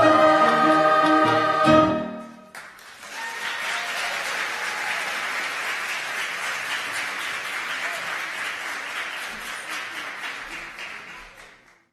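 A mixed children's and youth choir holding its final chord, cut off about two seconds in, followed by audience applause that fades out near the end.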